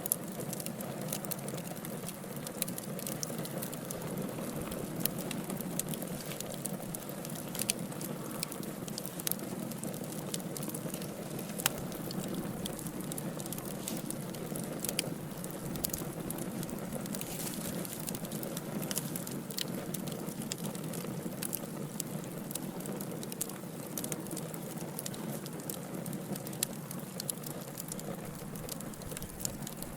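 Wood logs burning in a fireplace: a steady low rush of flame with irregular crackling and scattered sharper pops.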